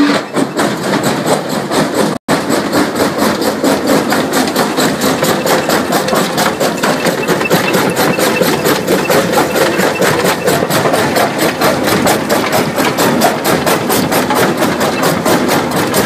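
CDI C60 concrete crusher running, with a rapid, even knocking over a steady engine drone. The sound cuts out for a moment about two seconds in.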